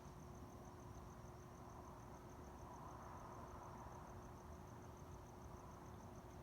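Faint night ambience: a cricket chirping in a fast, even pulse, over a low steady hum.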